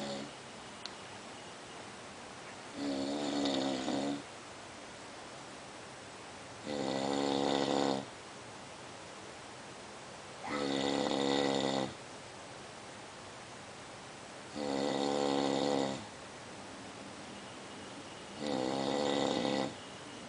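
A person snoring: five pitched snores about every four seconds, each lasting over a second, with a low steady hiss in between.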